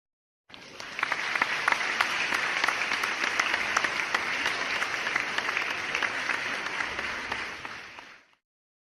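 Crowd applauding: a dense patter of many hands clapping that starts about half a second in, holds steady, and fades out near the end.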